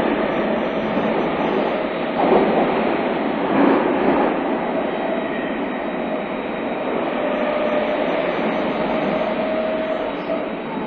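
Tobu 30000 series electric train running through a subway tunnel, heard from inside the car: a steady rumble of wheels and running noise. Two louder clunks come about two and three and a half seconds in, and a faint steady tone runs through the second half.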